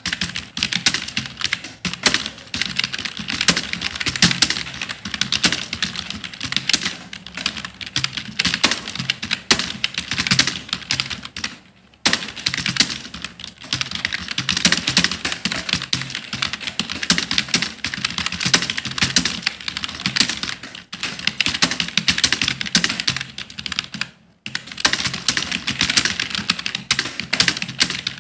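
Fast, continuous typing on a computer keyboard, a dense run of key clicks broken by brief pauses about twelve seconds in and again near twenty-one and twenty-four seconds.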